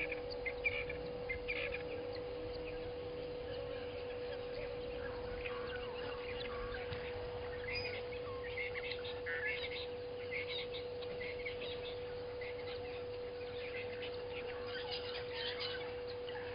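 Wild birds chirping and calling in short scattered notes, over a steady hum.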